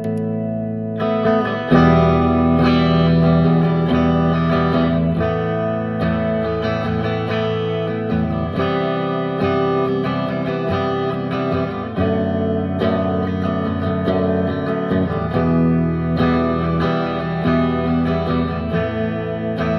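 Guitar played through a Becos FX CompIQ Mini Pro compressor pedal: chords struck and left ringing, changing every few seconds.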